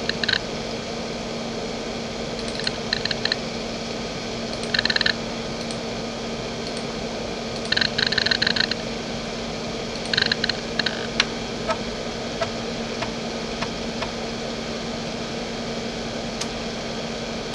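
JVC JDE2042M10-1 40MB 2.5-inch hard drive seeking: five short bursts of rapid head clicks, then scattered single ticks, as it reads files. A steady low hum runs underneath.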